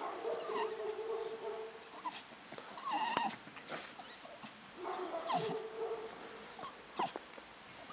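Dog whining and yapping in play: a drawn-out whine at the start, a short sharp yap about three seconds in, and another whine about five seconds in.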